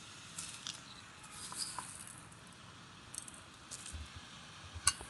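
Quiet kitchen handling sounds: light, scattered ticks and scrapes as crystal salt is added to rice upma in a stainless steel kadai, with one sharper click near the end.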